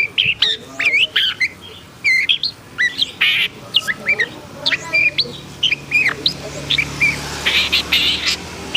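Long-tailed shrike (pentet) singing in an agitated state: a fast, continuous run of varied chirps and whistled glides mixed with harsh squawking notes. A low hum comes up underneath in the second half.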